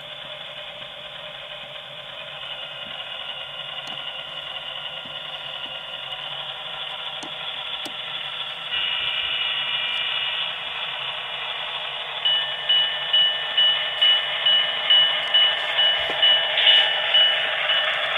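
QSI sound decoder in a model Alco RSD-15 diesel locomotive playing its diesel engine sound through the model's small speaker, the engine building up and getting louder, with a step up about nine seconds in. From about twelve seconds in, a bell rings steadily about twice a second.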